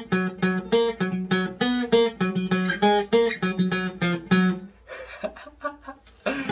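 Taylor GS Mini-e Rosewood acoustic guitar being played, with quick picked notes over a repeating low bass note, several notes a second. About three-quarters of the way through the playing drops to a few soft, scattered notes, and a loud strum comes right at the end.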